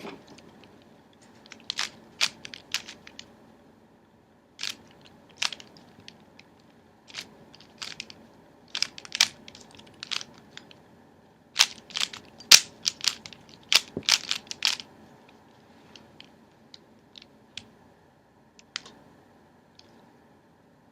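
Rubik's speed cube being twisted by hand: irregular clusters of quick plastic clicks and clacks as the layers turn, with short pauses between the clusters.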